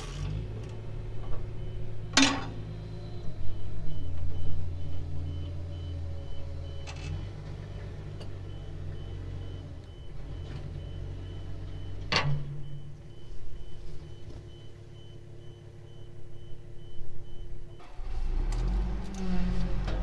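Diesel machinery running steadily with a faint backup alarm beeping over it, and two sharp knocks, one a couple of seconds in and one past the middle, from work on the bulldozer's side panel.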